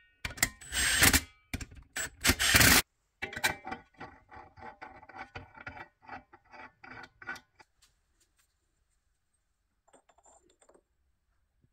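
A cordless power tool runs in four short bursts, driving the bolts of a rear brake backing plate, followed by a few seconds of rapid metallic clicking. Near the end comes a faint scrape of metal parts being handled.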